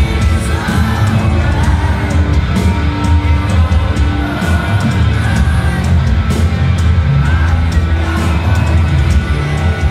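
Live rock band playing: electric guitars, bass, keyboard and drums, with the lead singer singing over them.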